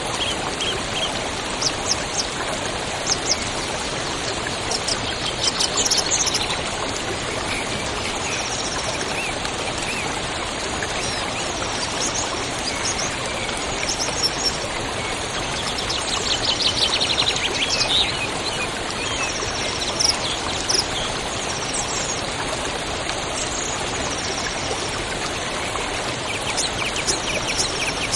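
River water rushing steadily, with small birds chirping and trilling over it in short runs.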